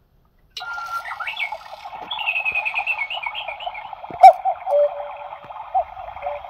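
Battery cuckoo clock playing its recorded call, set off by turning the hand to the hour. Birdsong starts about half a second in. About four seconds in there is a click, then two falling two-note cuckoo calls over the birdsong.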